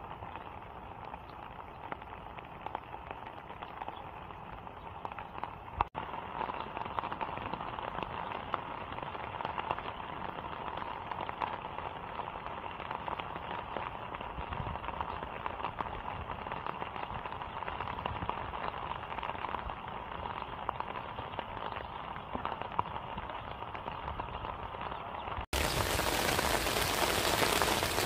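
Steady rain falling, a continuous hiss of drops. About 25 seconds in it cuts abruptly to a louder, brighter stretch of rain.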